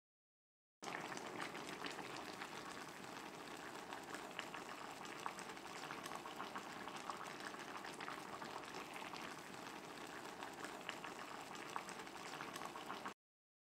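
Red braising liquid of Korean braised mackerel (godeungeo-jorim) bubbling at a boil in a pot: a steady bubbling with many small pops. It starts about a second in and cuts off suddenly near the end.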